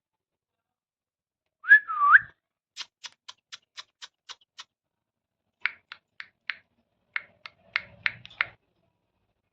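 Indian ringneck parrot giving one loud looping whistle, then strings of short, sharp clicking chirps, about four a second, in three runs.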